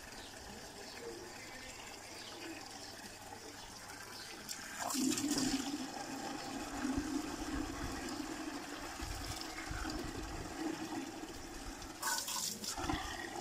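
Water from a hose pouring into a plastic bucket: a steady gushing splash that grows louder about five seconds in, with a brief louder splash near the end.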